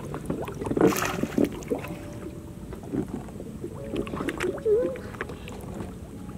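Lake water lapping against floating plants, with irregular small plops and clicks.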